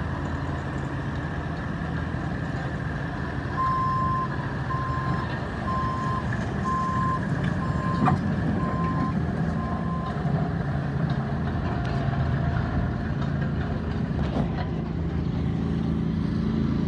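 Bobcat T650 skid steer's diesel engine running steadily. Its backup alarm beeps seven times, about once a second, as the machine reverses, and there is a single sharp knock partway through.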